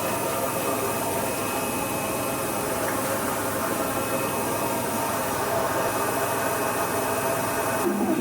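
A steady hum with hiss, machine-like, without breaks or strokes.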